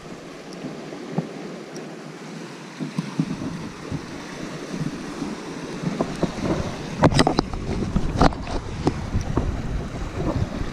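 Sea swell washing and splashing against a rock ledge, with wind buffeting the microphone. It gets louder in the second half, with several sharp thumps.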